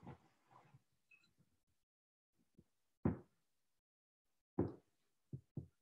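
Spoon knocking against a mixing bowl while stirring dumpling dough: four short knocks, one about three seconds in and three closer together near the end.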